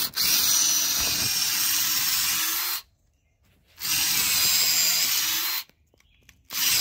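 Cordless drill with a 5/16-inch twist bit boring a hole right through a wooden timber. It runs for nearly three seconds, stops, runs again for about two seconds, stops, and starts once more near the end.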